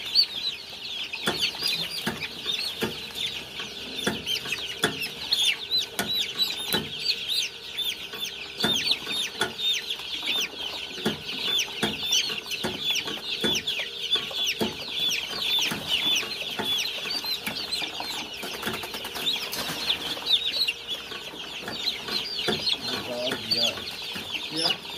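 Many young chicks peeping continuously in short, high, falling chirps. Short knocks sound about once a second through the peeping.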